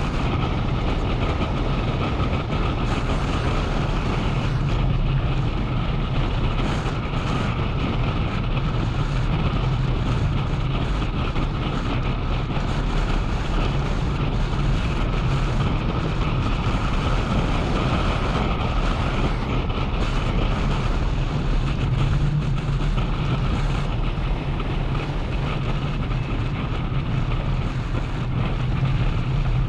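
Motorcycle engine running steadily at cruising speed, with road and wind noise on the camera's microphone.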